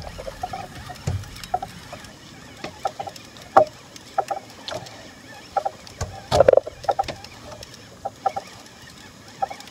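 Shimano Saragosa 10000 spinning reel's drag slipping, giving line in short, irregular chirps as a hooked fish pulls against it; one louder chirp about six and a half seconds in.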